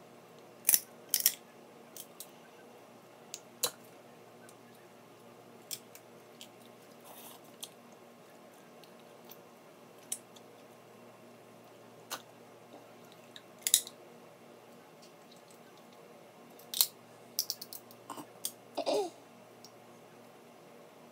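Snow crab shells cracked and snapped apart by hand: sharp, scattered cracks and clicks several seconds apart, with a cluster of them in the last few seconds.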